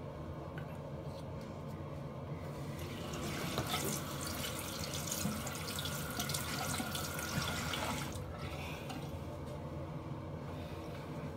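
Bathroom sink tap running as a steady rush of water for about five seconds, then turned off.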